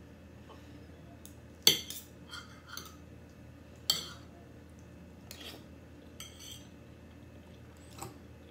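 Metal cutlery clinking and scraping against a plate as food is cut and picked at, with two louder clinks about two and four seconds in and lighter taps in between.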